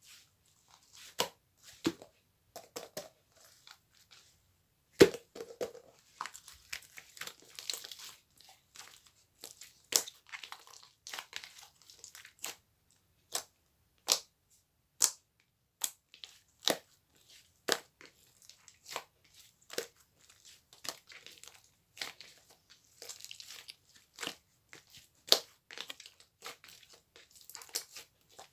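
Close-up handling of small objects: scattered sharp clicks and taps with short stretches of crinkling, the sharpest knock about five seconds in.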